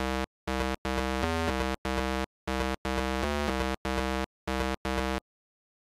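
A buzzy electronic synthesizer tone played in a choppy run of about ten short pulses, a couple of them stepping in pitch partway through, stopping about five seconds in.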